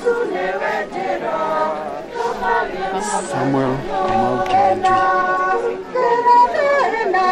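A choir singing, several voices holding and sliding between notes together.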